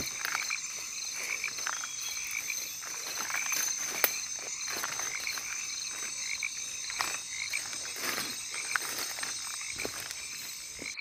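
Night chorus of frogs and insects in the Amazon rainforest: steady high-pitched trilling with rhythmic pulsed calls and a few faint clicks.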